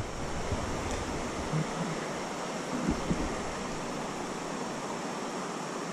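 Steady rushing of flowing creek water, an even hiss with no rhythm.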